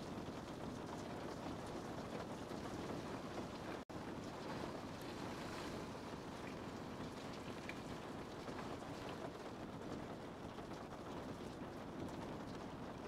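Steady rain, an even hiss with faint scattered drop ticks. The sound cuts out for an instant about four seconds in, then carries on as before.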